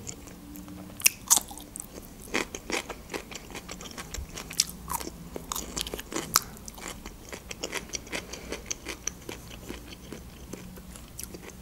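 A person chewing crisp fresh cucumber with the mouth close to the microphone: irregular wet crunches and mouth clicks, a few of them sharper and louder.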